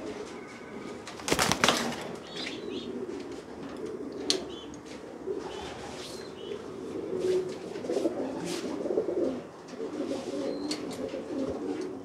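Homing pigeons cooing steadily in the loft, with a brief burst of wing flapping about a second and a half in, as a hand-held pigeon beats its wings.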